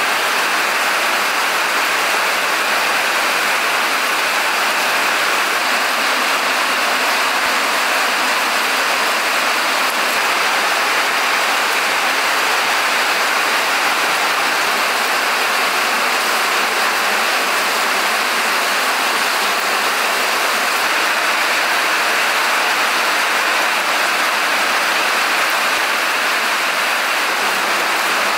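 Steady rain, an even rushing hiss with no break.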